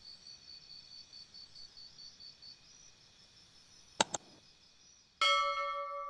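Two quick clicks and then a bright bell ding that rings on and slowly fades: the sound effect of a subscribe button with its notification bell. Before them, a faint high chirping of about four pulses a second, like a cricket, dies away a little under halfway through.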